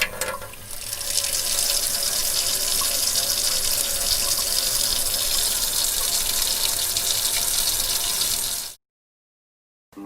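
Water running from a tap in a steady stream, building up over the first second and cutting off suddenly near the end.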